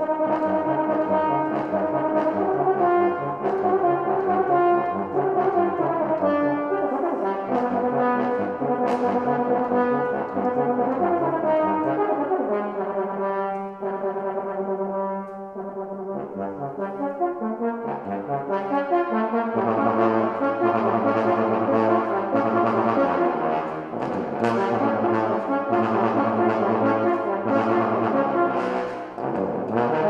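A bass trombone and a tenor trombone play a duet, two lines of held and moving notes. The music softens in the middle, then grows louder again.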